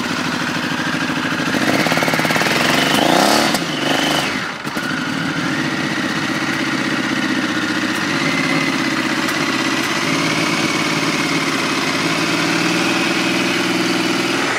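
Triumph Tiger 900's three-cylinder engine running, blipped once about two seconds in so its pitch rises and falls back, then held steady at a raised idle.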